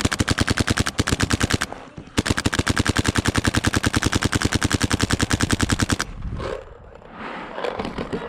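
WGP SuperStock Autococker paintball marker, with a Palmer's ram and Shocktech lower tube, firing rapid, evenly spaced shots in two long strings with a brief pause about two seconds in.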